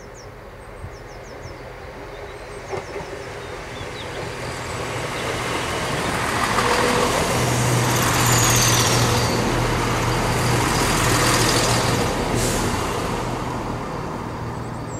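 Chiltern Railways diesel multiple unit approaching and passing close by. A steady low engine drone and wheel-on-rail noise build up, are loudest for several seconds in the middle, then fade as the train moves away.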